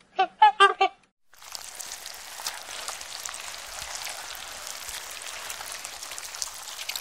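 Four quick, high-pitched calls from a young animal in the first second, then a steady crackling hiss through the rest.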